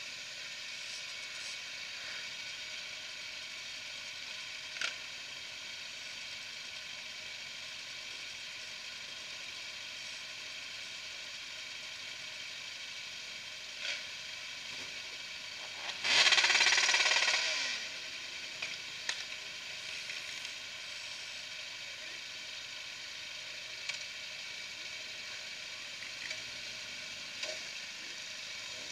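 Steady hissing noise of a large group of motorcycles idling together, with a much louder rush lasting about two seconds around the middle and a few light clicks.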